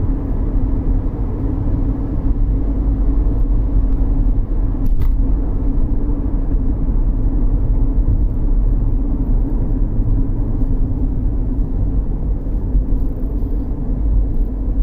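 Cabin noise of a 2013 Chevrolet Equinox with the 2.4-litre four-cylinder on the road: a steady low rumble of engine and tyres. A brief click about five seconds in.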